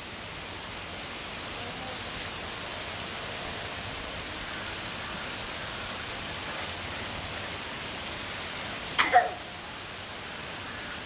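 Steady hiss of background noise, with a young child's short high call about nine seconds in.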